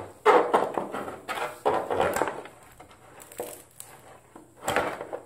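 A thin plastic armor piece and a metal ruler being handled: a few scattered knocks, rubs and crinkles, with the sharpest about four and a half seconds in.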